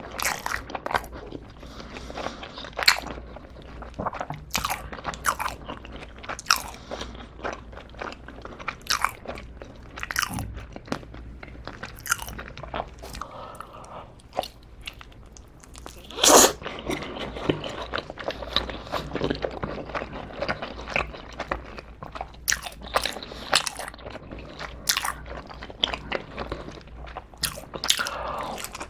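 Close-miked eating of black sugar bubble tea pizza with an egg-tart crust: a steady run of short crunchy bites and chewing, with one loud bite about sixteen seconds in.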